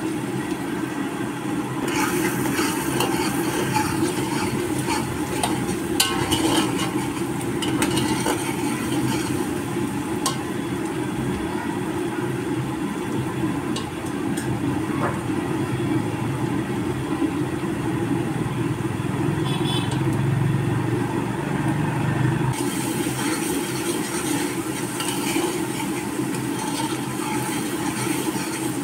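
Contents of a large aluminium cooking pot bubbling steadily on the burner, with a few sharp clinks of a steel ladle against the pot. Stirring with the ladle picks up near the end.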